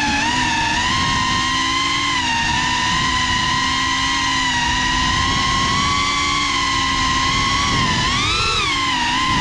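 GEPRC CineLog 35 FPV drone's brushless motors and propellers whining steadily, heard from its onboard camera over a rough rush of prop wash, the pitch wavering slightly with throttle. The whine briefly rises in pitch and falls back about eight seconds in.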